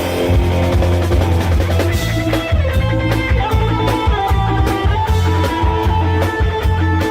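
Loud live band music from a Thai rot hae sound truck: an electric guitar lead holding long notes over heavy bass and a drum kit with quick snare hits and rolls.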